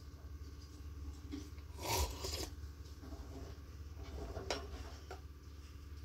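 Rose-ringed parakeet pecking and scraping its beak at crumbs on a cloth bedspread as it eats: a rasping scrape about two seconds in, then a few sharp taps.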